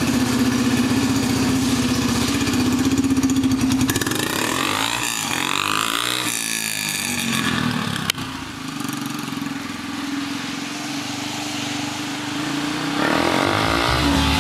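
Yamaha TTR-125 dirt bike's single-cylinder four-stroke engine running through a custom spark arrestor exhaust tip. It is steady at first, rises and falls in pitch for a few seconds partway through as the bike rides off, then settles to a steady note again.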